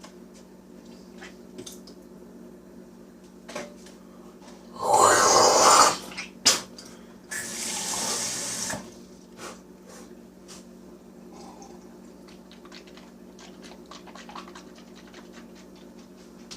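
Water running from a tap in two short spells, about five and about eight seconds in, with a few clicks between.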